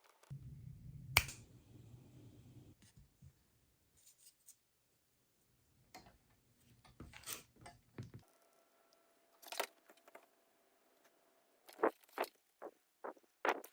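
Scattered clicks, taps and scrapes of cardboard being cut and handled in crafting work, with a sharp click about a second in and a quick run of clicks near the end.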